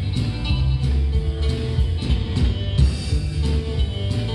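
Live country band playing: electric guitar and acoustic guitar over bass guitar and a drum kit, amplified through stage amps, with a steady beat.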